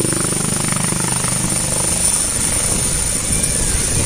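Helicopter lifting off and climbing away, its rotor and turbine running steadily. About two to three seconds in, the even drone gives way to a deeper, pulsing rotor beat as it climbs.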